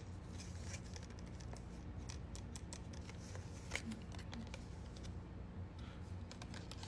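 Bookmarks being handled and tapped close to the microphone for ASMR: a run of light, irregular clicks and taps, with one sharper click just under four seconds in.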